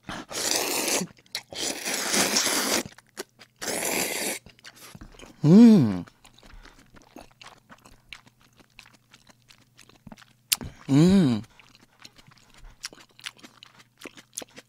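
A man slurping noodles of cream jjamppong loudly three times in the first four seconds, then chewing with faint wet clicks. He gives two short hums through his closed mouth, about five and eleven seconds in.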